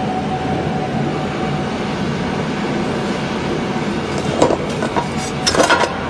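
Automatic cable cutting and stripping machine running with a steady drone and a faint steady tone, with a few short metallic clinks about four and a half seconds in and again near the end.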